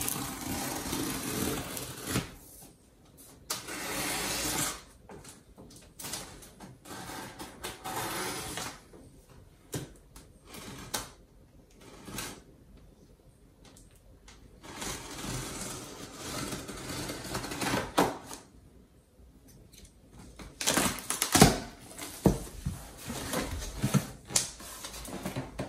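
Scissors slitting the packing tape on a large cardboard shipping box: scraping strokes a second or two long with pauses between them. Near the end come sharp knocks and rustling as the cardboard flaps are pulled open.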